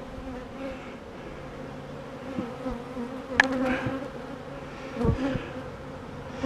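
Honey bees buzzing in flight, many at once, a steady wavering drone. A sharp click comes about halfway through and a low knock a little later.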